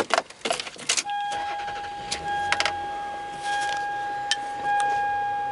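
Keys rattling and clicking, then about a second in a 2003 Toyota Sienna's electronic warning chime starts. It is one steady high tone, re-struck about every second, with a few light clicks over it.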